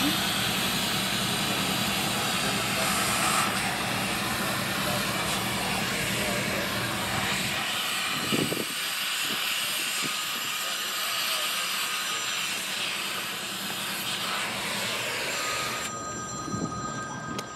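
A cutting torch hissing steadily at the coupler of a coal hopper car during the repair of a broken coupler knuckle. A low steady hum lies under it for the first half, and the hiss cuts off sharply near the end.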